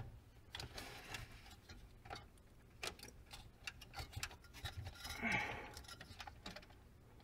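Faint, irregular clicks and small knocks of hands working on a desktop PC's CPU cooler, with a louder rustle about five seconds in.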